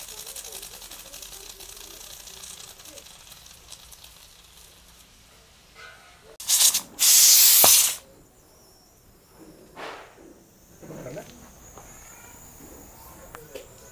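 Pressure cooker of urad dal building steam on a wood fire. A faint steady hiss of escaping steam is followed, about halfway through, by a loud hiss lasting about a second and a half: a short puff, then a longer blast, as the cooker whistles and vents its pressure.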